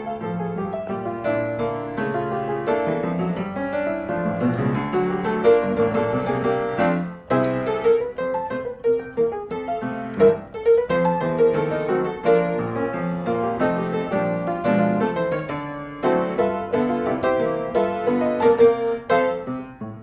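Background piano music, a steady run of light notes.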